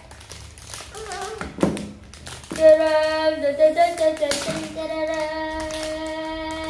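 Plastic packaging crinkling and tearing as a packet is pulled open, then, about two and a half seconds in, a child's voice holds one long sung note over more crinkling.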